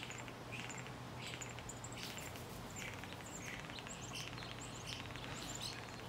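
Faint, scattered high chirps from small birds, several a second and irregular, over a steady low hum.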